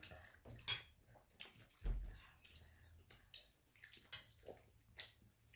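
Faint chewing of a mouthful of breaded chili chicken: scattered wet mouth clicks and smacks, with one soft low thump about two seconds in.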